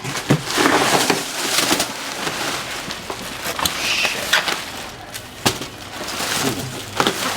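Cardboard box and packing material being handled as exhaust parts are unpacked: continuous rustling and crinkling with scattered sharp crackles and knocks.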